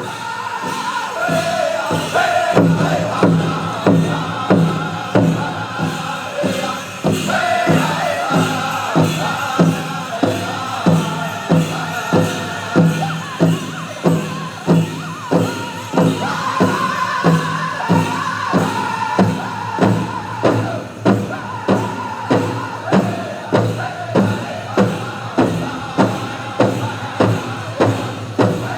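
Powwow drum group singing a contest song: several men hit a big drum in a steady beat of about one and a half strikes a second while singing high in unison over it.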